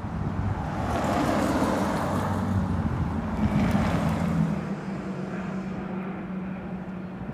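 A passing road vehicle: a noisy rumble that rises about a second in and fades away after about four and a half seconds, over a low steady hum.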